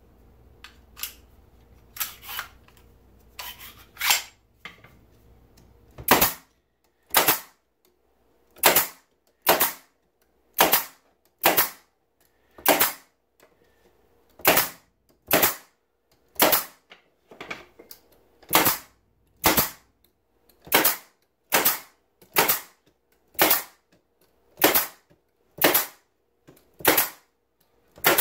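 Pneumatic staple gun driving 1-inch staples into the wooden top bars of beehive frames: about twenty sharp shots, roughly one a second, starting about six seconds in, after a few lighter clicks.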